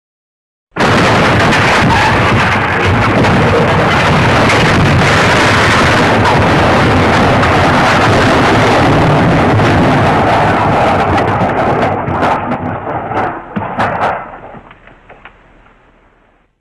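The 'elephant smash' crash sound effect: a sudden, loud, dense crash and smashing that holds for about eleven seconds, then breaks into a few scattered clattering impacts and fades away.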